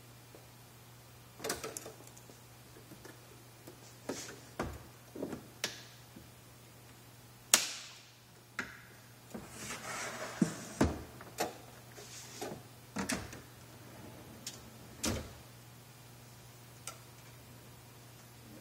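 Clicks, knocks and clacks of a rack-mount dual-monitor unit being stowed: the hinged monitor panels are folded down and the keyboard drawer is pushed in on its steel ball-bearing slide rails. The loudest is a single sharp clack about seven and a half seconds in, and a low steady hum runs underneath.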